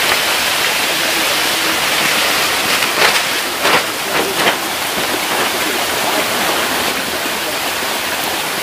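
Steady rushing and splashing of water in a concrete tank crowded with hybrid magur catfish, with water spraying in from an inlet pipe and the fish churning at the surface. A few sharper splashes come between about three and four and a half seconds in.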